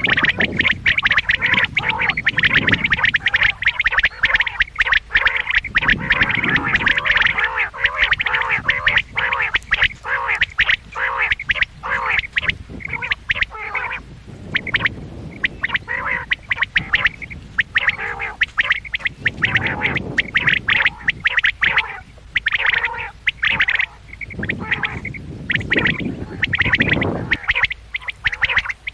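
Quails calling loudly and continuously, many short, rapid notes overlapping in dense runs, thinning out in places, with a few low rumbling sounds underneath.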